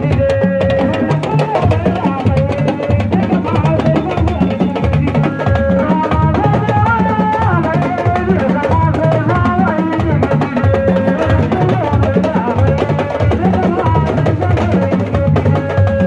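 Music: drumming with a wavering pitched melody over it, loud and unbroken.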